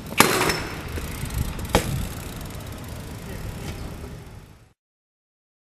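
BMX bike striking a concrete ledge: a sharp clack about a fifth of a second in and a second knock just under two seconds in, over steady low rolling and outdoor noise. The sound fades out about three-quarters of the way through and drops to dead silence.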